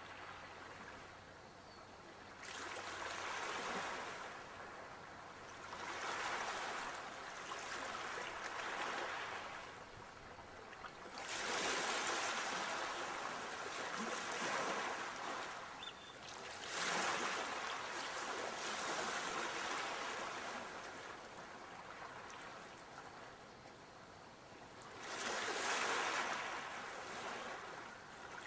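Sea waves breaking and washing in, a swell of surf every few seconds that rises and then fades, about six in all.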